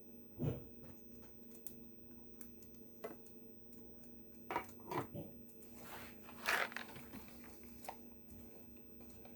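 Hands handling gingerbread house pieces and icing on a table: scattered short knocks and rustles, the loudest about half a second in and again around six and a half seconds in, over a steady low hum.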